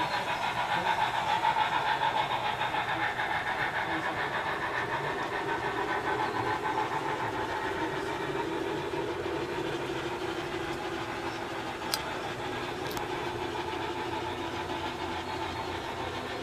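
Model train running along the layout track: a steady mechanical rolling rumble that slowly fades as the passenger cars move away. Two sharp clicks come a second apart about three-quarters of the way through.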